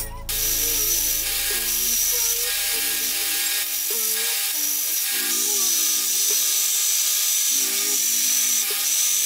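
Electric belt grinder running with a steady hiss as a small steel plate is pressed against its abrasive belt to grind the edge. The high grinding note keeps cutting out and coming back as the plate is worked.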